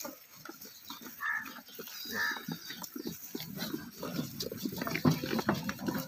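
Goats, mostly Salem Black, eating together at a feeding trough: a busy jumble of short, irregular crunching and knocking sounds as they chew and jostle, busiest near the end.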